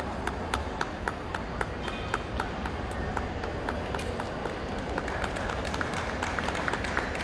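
Spectators clapping steadily along, about four sharp claps a second, over a constant crowd murmur.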